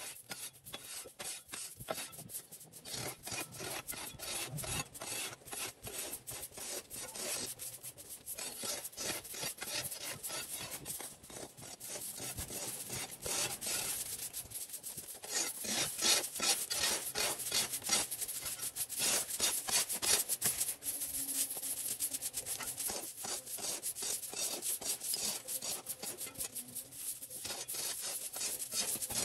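Rapid, repeated scraping strokes, several a second, growing louder after about fifteen seconds.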